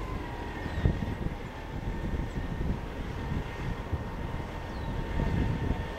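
Airbus A320-211 on final approach, its CFM56 engines giving a steady whine. Gusty wind rumble buffets the microphone and is the loudest sound, peaking about a second in and again near the end.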